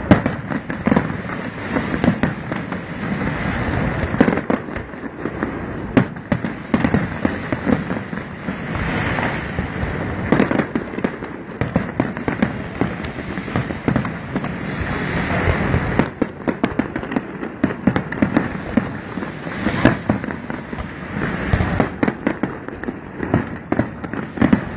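Aerial fireworks display: a dense, unbroken barrage of booming shell bursts and crackling, several bangs a second.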